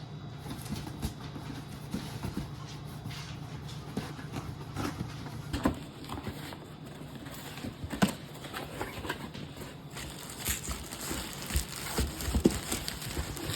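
A large cardboard shipping box being opened and its packaging handled: irregular knocks, taps and crinkly rustles, busier in the second half, over a steady low hum.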